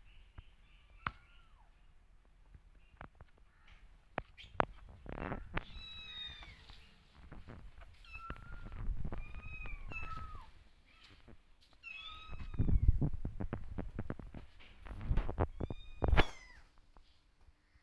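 Kittens meowing over and over, high calls that fall in pitch at the end, calling for their mother cat. Clicks and a few heavy thumps sound between the calls, the loudest near the end.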